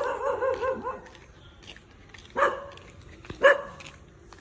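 Small dog barking: a quick run of about five yips in the first second, then two single barks about a second apart.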